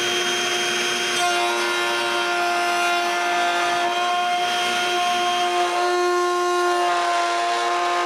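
Table-mounted router running with a steady high whine as its spinning bit cuts a groove into the side of a wooden drawer for a drawer slide.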